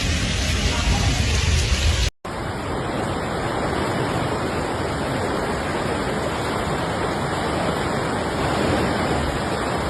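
Steady rushing noise of storm water, heavy rain and running water, with heavy low rumble for the first two seconds. It cuts out for an instant about two seconds in, then carries on evenly.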